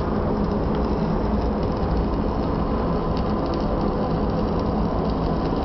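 Steady low rumble and noise of a ship under way, with faint crackling from an arc welder on deck.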